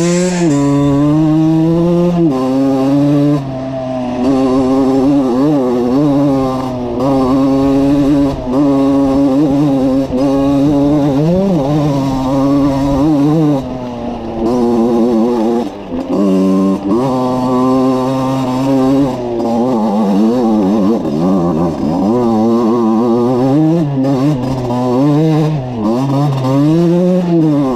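Valenti RME 50cc two-stroke enduro motorcycle engine under way, its pitch rising and falling again and again as the throttle is opened and closed, with a few short drops in revs and loudness.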